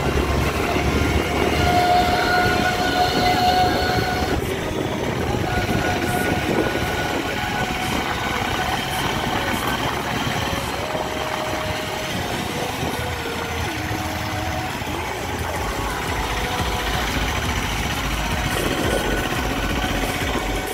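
Steady road noise of a moving scooter: engine and tyre drone with a low wind rumble on the microphone. A held tone in the first few seconds cuts off suddenly.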